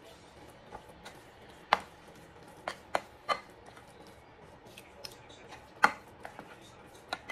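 A metal spoon clinking against a ceramic mixing bowl while a thick mashed sweet potato dough is stirred, about six sharp clinks at uneven intervals.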